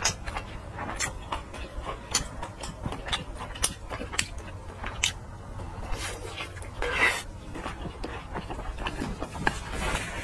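Close-miked eating of a large red sausage: biting and chewing, with many sharp, wet mouth clicks. The sound gets louder for a moment about seven seconds in.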